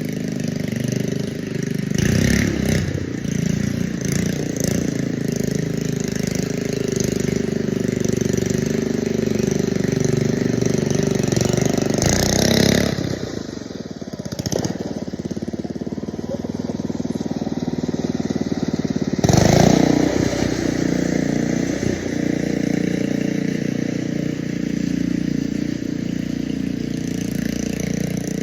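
Small petrol lawn mower engine running steadily, with a few louder, rougher surges: one about two seconds in, one around twelve seconds and one near twenty seconds.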